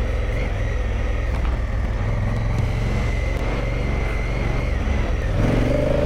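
Adventure motorcycle engine running steadily while riding a dirt track, heard from the rider's camera. The sound changes about five and a half seconds in.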